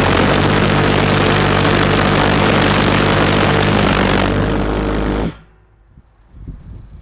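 Large V1-size test pulsejet engine running flat out with a loud, steady, deep buzzing drone and hiss. About five seconds in it cuts out suddenly as its thin test tailpipe is sucked shut and collapses, an engine run to failure. Only faint scattered clicks follow.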